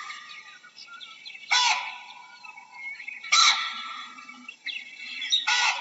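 Baboon giving short, harsh barking calls three times, about two seconds apart, with fainter bird chirps and whistles behind.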